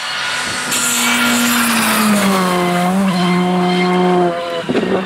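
Rally car engine at high revs as the car passes, its note falling about two seconds in and then holding before it cuts off sharply near the end, followed by a few short crackling pops.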